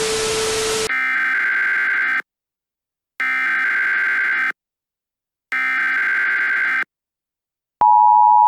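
Emergency Alert System alert tones. A brief burst of static with a low steady tone comes first. Then three harsh buzzing SAME header data bursts, each just over a second long with about a second of silence between them. Near the end the steady two-tone EAS attention signal starts.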